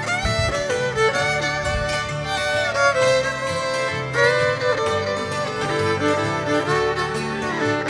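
Bluesy string-band instrumental played on fiddle, hammered dulcimers and upright bass, the fiddle prominent with sliding notes over a walking bass line.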